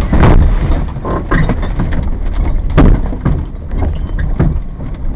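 Off-road vehicle driving over a rough track: a steady low rumble broken by repeated knocks and jolts, the heaviest near the start and again just under three seconds in.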